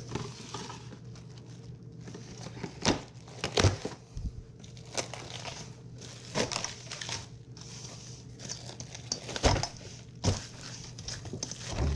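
Plastic cling wrap being pulled off its roll and stretched over a glass bowl, crinkling and crackling irregularly, with several louder crackles.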